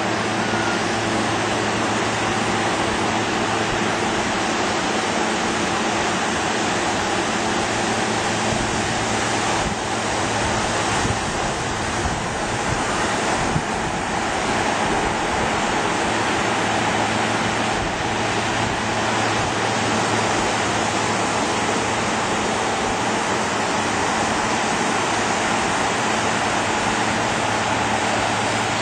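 Steady, unbroken wash of surf and wind noise on the microphone, with a faint low hum running underneath.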